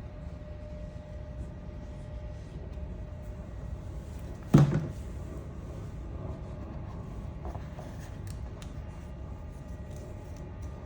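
One sharp knock about halfway through, then a few faint clicks, over a steady low hum.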